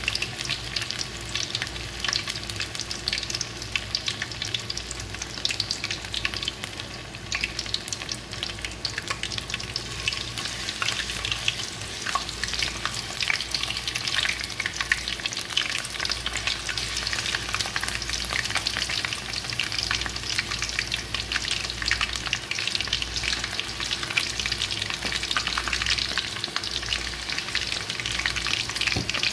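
Battered chicken pieces deep-frying in hot oil in a kadhai: a steady, dense sizzle and crackle of bubbling oil, with more coated pieces lowered into the oil partway through.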